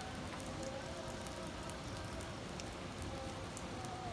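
Steady rain falling on wet asphalt, an even hiss with a few sharp, close drop hits scattered through it.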